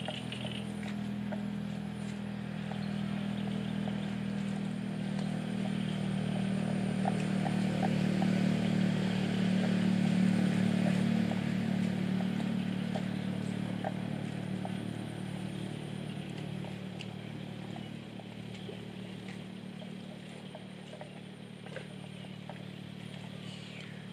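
An engine running steadily off to one side, a low even drone that grows louder to a peak about ten seconds in and then slowly fades.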